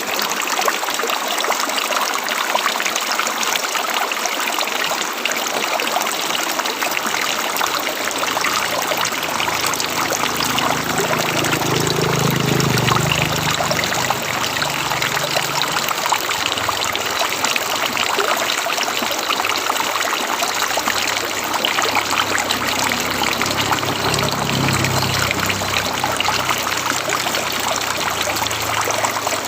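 River water flowing in a steady, even rush. A deeper low rumble swells up twice, for a few seconds each time.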